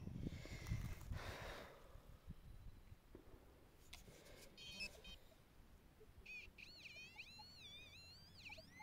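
A few soft scrapes of soil being disturbed, then a metal-detecting pinpointer probed in the dig hole: short beeps, then a high warbling tone that swings up and down in pitch as it moves near a buried target.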